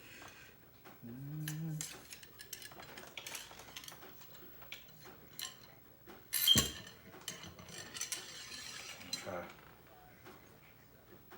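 Metal cleaning rod and gear clinking and scraping as a muzzleloader's barrel is cleaned with patches. The sound is a run of scattered light clicks, with one sharp clack about six and a half seconds in.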